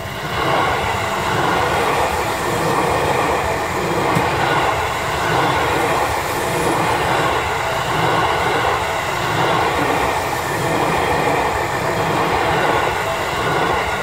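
Seibu 40000 series electric train passing a level crossing, a loud rush of wheels on rail that swells about half a second in and fades as the last car clears near the end.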